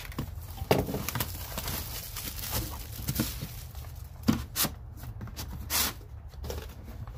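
Plastic shrink wrap being cut and torn off a plastic tool case, crinkling and rustling, with a few sharp knocks as the case is handled.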